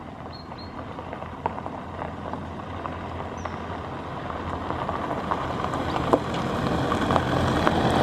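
A motor engine running with a low hum, growing steadily louder as it comes nearer. A few faint high chirps sound in the first half.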